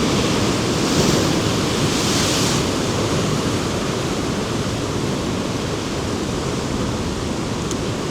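Rough sea breaking against coastal rocks: a steady rush of surf with wind on the microphone. A heavier surge of spray hiss comes about one to two and a half seconds in, then the sound eases slightly.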